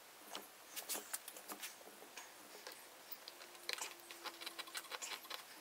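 Faint, scattered clicks and taps of metal clamps being fitted and tightened along a glued split in an oak chair back. The clicks bunch about a second in and come again in a quicker run from about two-thirds of the way through.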